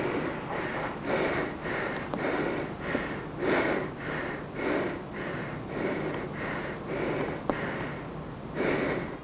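Rhythmic heavy breathing, panting at about two breaths a second close to the microphone.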